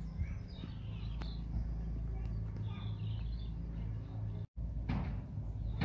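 Small birds chirping now and then over a steady low outdoor rumble. The sound cuts out completely for a moment near the end.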